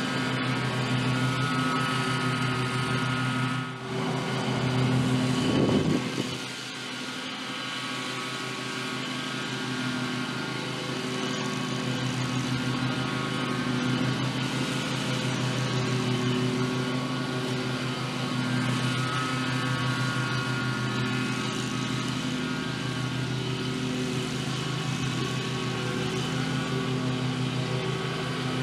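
Zero-turn riding lawn mower's engine running steadily while mowing grass, louder for a few seconds near the start, then settling to an even drone.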